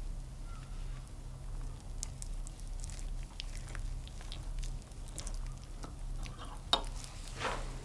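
A knife cutting down through a baked grated zucchini and potato cake, its crisp crust crackling in many small sharp crunches. There is a louder click near the end, followed by a short rustle.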